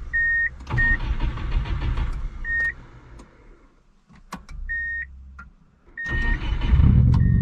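A 1997 Subaru Impreza's flat-four engine being cranked in several short tries, each marked by a short high beep, with clicks between the tries. About six seconds in, the engine catches and runs, much louder than before.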